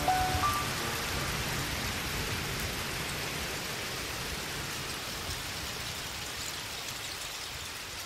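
A steady rushing noise that slowly fades, with no clear pitch or rhythm. The last held notes of background music die away in the first half-second.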